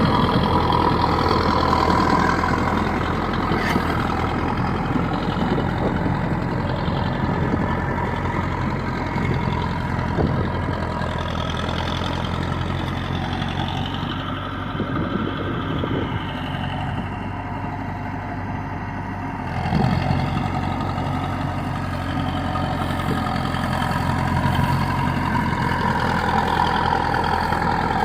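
Diesel engine of a Caterpillar crawler dozer running steadily while pushing out Russian olive trees. The engine eases off about halfway through, then picks up again after a short jolt.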